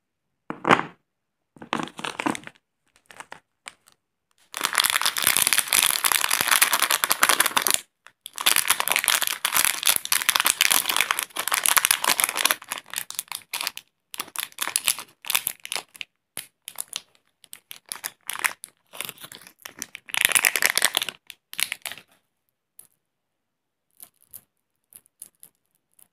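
A KitKat wafer bar snapped apart, heard as two short sharp cracks, then a Gems candy packet wrapper crinkled and torn open in long, loud stretches of rustling, followed by shorter rustles and a few faint clicks near the end.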